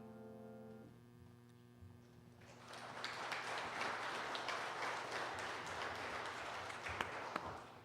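The last piano chord fading away, then a congregation applauding for about five seconds.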